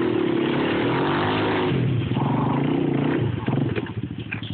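ATV engines revving hard under load while trying to pull a stuck ATV out of a ditch, the pitch rising and falling. About three seconds in they ease off to a lower, pulsing idle.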